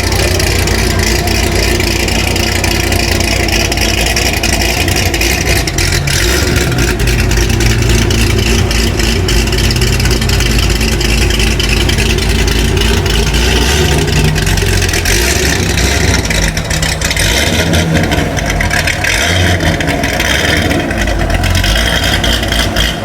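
Corvette V8 exhaust with the engine running loud and steady, idling and revving at times.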